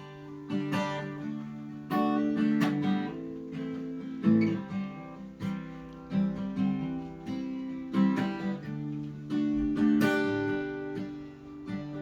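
Acoustic guitar playing a strummed and picked instrumental intro, chords struck in a steady rhythm.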